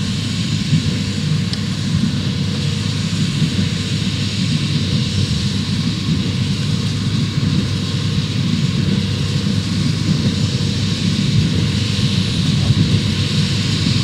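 New Holland T7.210 tractor's six-cylinder diesel engine working steadily under load, pulling a Massey Ferguson 186 square baler that runs along behind it.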